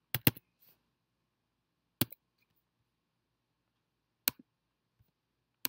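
A few sharp, separate clicks from a computer's keyboard and mouse: two in quick succession at the start, then single clicks about two seconds in, just after four seconds, and near the end.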